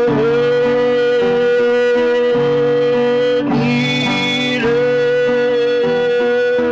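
Music: a song with guitar and a long held note that breaks off about three and a half seconds in and returns about a second later.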